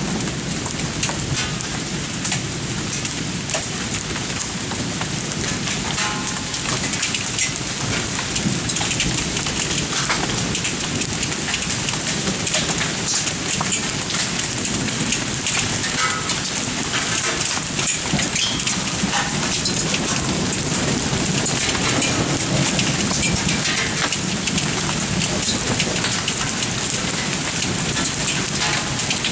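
Pea- to marble-size hail and heavy rain pelting down in a strong thunderstorm: a dense, steady patter with many sharp ticks from hailstones striking.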